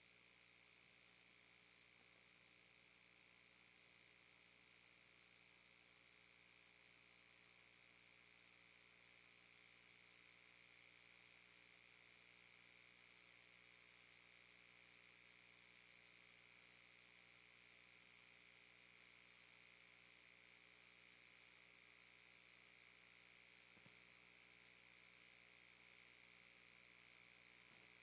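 Near silence: a faint, steady electrical hum and hiss on the sound line.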